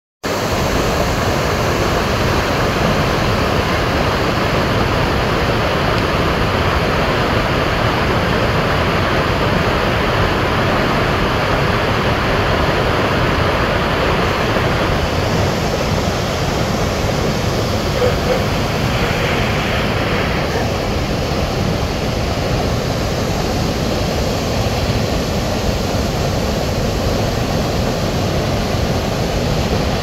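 River waterfall: brown water pouring over broad, stepped rock ledges into churning white water, a steady, loud rushing noise.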